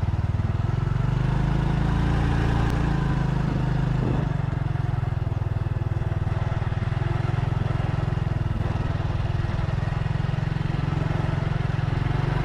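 Motorcycle engine running steadily at low speed, heard from on board.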